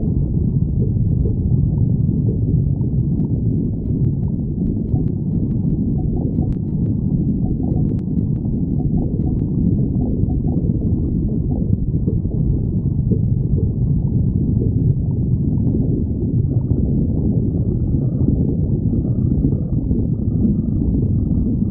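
A person's stomach growling: a continuous low rumbling and gurgling.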